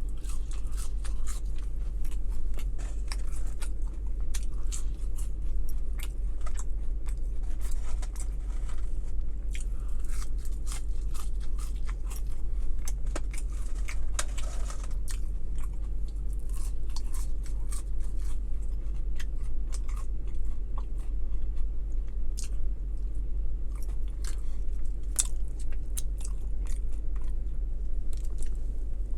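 Close-up chewing and biting of a McDonald's McGangBang sandwich, a McChicken stacked inside a McDouble: many short wet smacks and crunches, kept up steadily, over a constant low hum.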